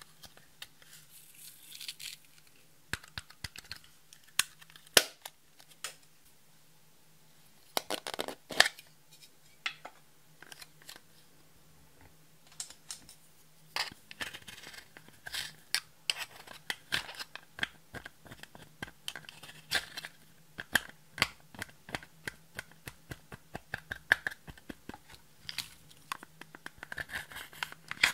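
Pressed highlighter powder being scraped and broken up in its plastic compact with a plastic spatula: quick scratchy crunching with many small clicks. In the first half there are only a few scattered clicks and taps of the compacts being handled; the steady scraping starts about halfway through.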